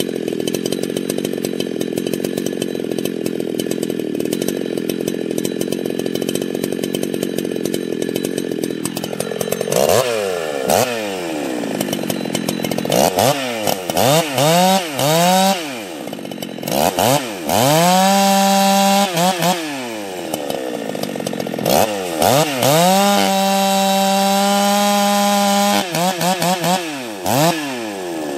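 Husqvarna 61 two-stroke chainsaw idling steadily, then revved up and down over and over from about nine seconds in. Twice it is held at high revs for a couple of seconds or more.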